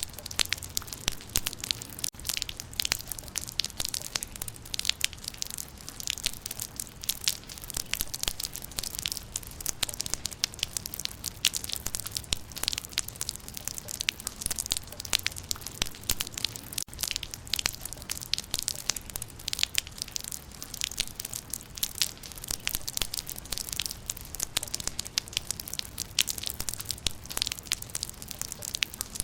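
Rain falling on leaves: a dense, steady patter of many small drop ticks that goes on without a break.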